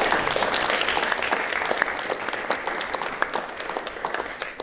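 Audience applauding, many hands clapping together, slowly thinning out toward the end.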